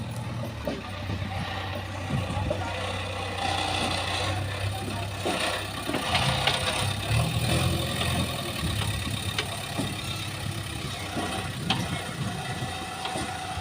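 JCB backhoe loader's diesel engine running steadily as the machine works, with a few sharp clanks along the way.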